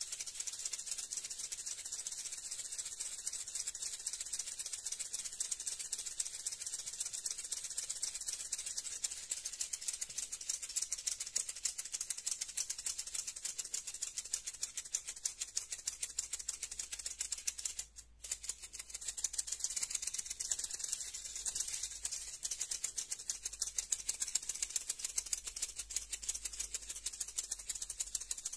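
Maracas shaken continuously in a rapid, even rattle, with one brief break about two-thirds of the way through.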